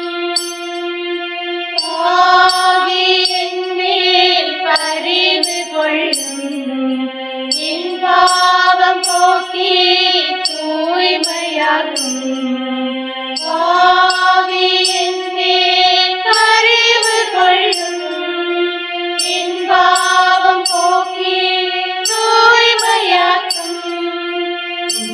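Devotional music: a sustained, gliding melody over a steady rhythm of light, high percussion ticks.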